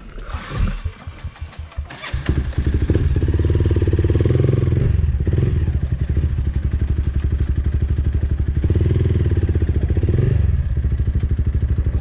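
Dirt bike engine firing a few uneven times, then catching about two seconds in and running with a steady throb, revved briefly twice.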